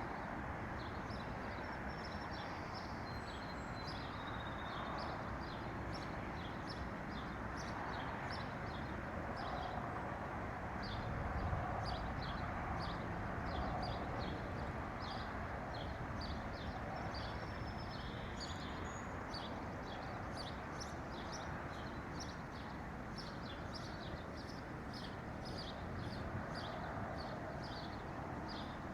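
Birds chirping: many short, high calls in quick succession throughout, over a steady background rush.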